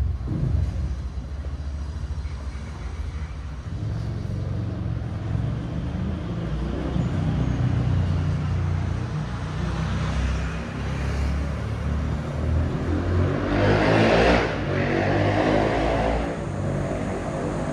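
Road traffic: a steady low rumble, with a motor vehicle's engine passing close and loudest from about thirteen to sixteen seconds in.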